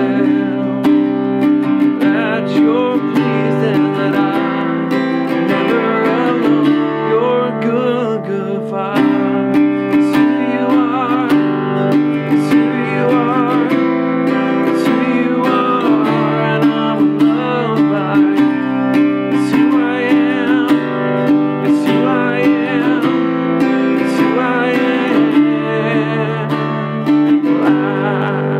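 Acoustic guitar strummed in one repeating pattern, moving through a song's chord changes.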